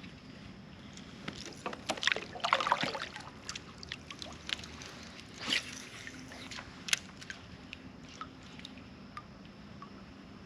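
Water sloshing and splashing around a kayak, with irregular splashes and light knocks; the loudest cluster comes about two seconds in, with single splashes later.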